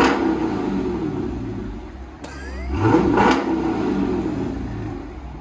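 Dodge Charger R/T's 5.7-litre Hemi V8 revved twice through an aftermarket exhaust: high revs at the start falling back, then a second rev about three seconds in that settles down again.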